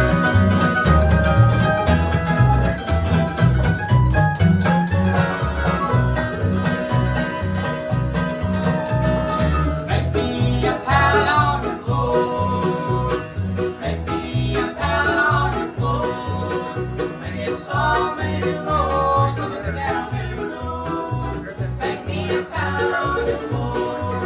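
Bluegrass band playing an instrumental introduction: banjo and guitar picking over a steady bass beat, with a fiddle adding wavering held notes from about ten seconds in.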